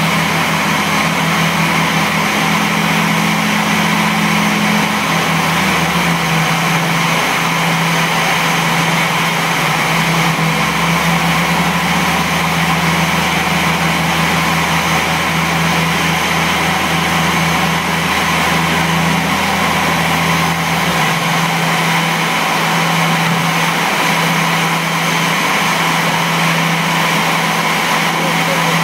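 Aircraft pushback tug's engine running steadily while it tows an Airbus A340 by a tow bar on the nose gear. The engine note drops in pitch about six seconds in, and a lower hum fades out near the end.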